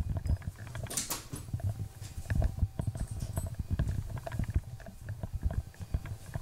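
Handheld-camera handling noise and footsteps: irregular low thumps, clicks and rustling, with a brief louder rustle about a second in.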